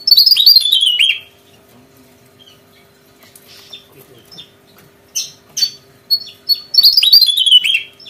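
Javan tesia singing: two fast, tumbling phrases of high notes that step downward, each about a second long, one at the start and one near the end, with a few short chirps in between.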